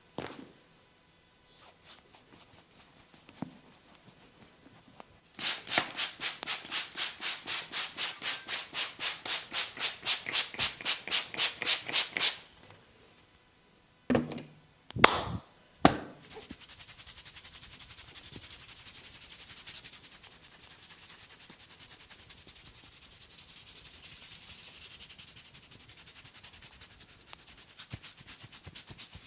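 Hands rubbing and scratching through hair on a scalp during a head massage: fast rhythmic rubbing at about four strokes a second for several seconds, then two or three sharp loud smacks, then softer, steady scratching.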